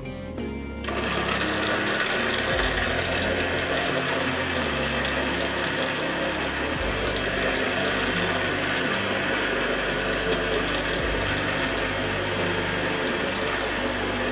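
Electric countertop blender switched on about a second in and then running steadily, liquidising grapes and falsa berries in water into juice.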